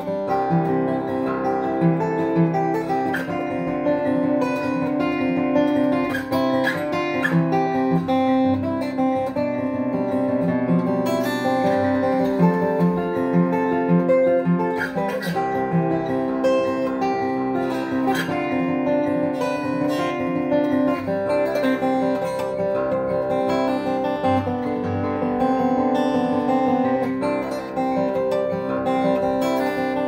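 1994 Taylor 420-R steel-string acoustic guitar played solo: an instrumental piece of ringing chords and picked melody notes.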